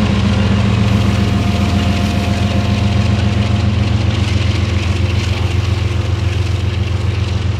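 Diesel freight locomotive's engine running steadily at low throttle with a deep, fast-pulsing hum as the trailing unit rolls slowly past close by.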